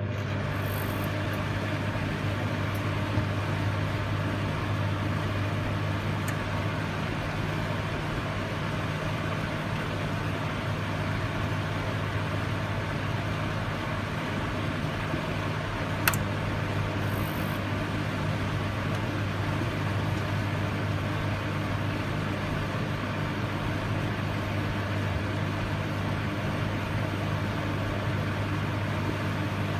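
Microwave oven running: a steady low electrical hum with fan noise, broken by a single sharp click about halfway through.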